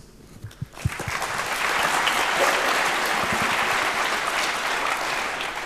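Audience applauding, starting about a second in, building up and then fading near the end.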